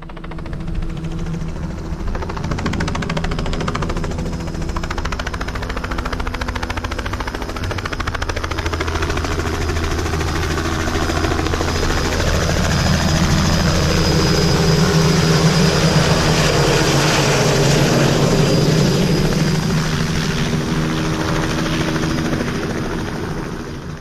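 Helicopter flying overhead with a steady rotor and engine noise, growing louder about midway and fading out at the end.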